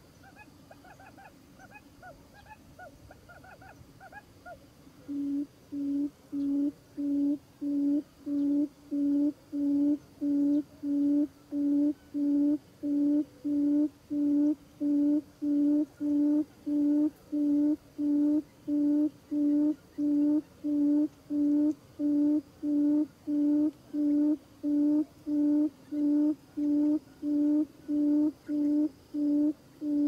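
Buttonquail calling: a flurry of quick, short, falling chirps, then from about five seconds in a steady series of low, deep hoots, about one and a half a second. This is the call used as a lure to draw wild buttonquail into the trap.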